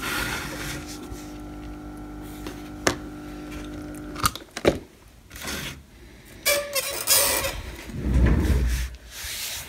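A steady machine hum with several tones runs, then cuts off about four seconds in. After it come scattered clicks, short rustles and a low thump of parts and the circuit board being handled on a workbench.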